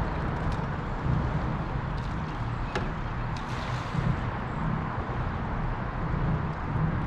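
Steady rushing noise with an uneven low rumble, typical of wind on the microphone outdoors, with a few faint clicks, one near the middle.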